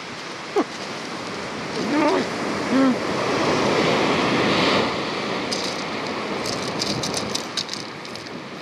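Sea wave breaking and washing up a shingle beach: a hiss that swells over a couple of seconds, peaks around the middle, then slowly fades.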